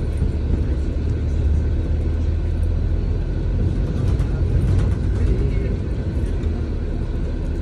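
Double-decker bus driving along, its engine and road noise a steady low rumble heard inside from the upper deck.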